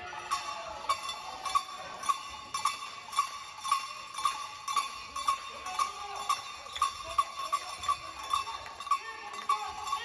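Cowbell struck in a steady beat, about two strikes a second, each a short metallic clank with a clear pitch.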